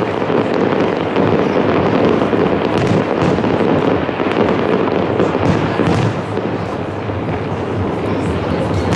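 Fireworks display: aerial shells bursting one after another, their booms and crackles running together with no pause.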